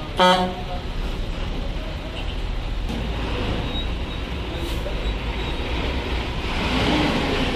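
A short, loud blast of a bus horn just after the start, then the steady low rumble of bus engines running, which grows louder near the end.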